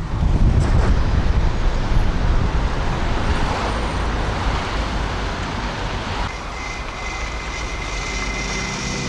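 Car driving away, steady engine and tyre rumble that is loudest in the first couple of seconds. Background music comes in near the end.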